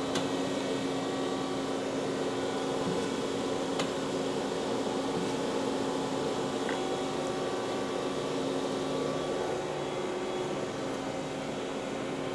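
Steady machine hum from a powered-up Mitsubishi RB32 cylindrical grinder and its hydraulic pump power unit, with a steady low tone and a couple of faint clicks. The hum eases slightly about ten seconds in.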